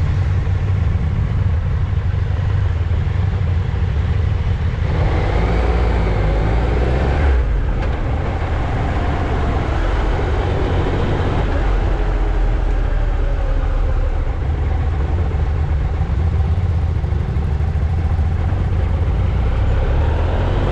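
Motorcycle engine running as the bike pulls away and rides along a street, its note rising and falling as it accelerates, over a steady low rumble of wind on the bike-mounted microphone.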